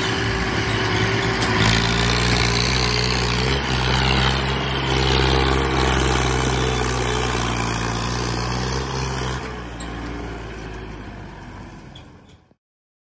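Massey Ferguson tractor's diesel engine running steadily as it hauls a heavily loaded sugarcane trailer past, fading away near the end and then cutting off suddenly.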